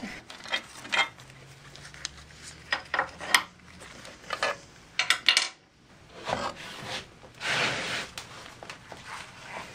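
Scattered metal clinks and knocks, with a short scraping rub about three quarters through, as the motor of a Rockwell RC-33 thickness planer is unbolted and lifted off its mount.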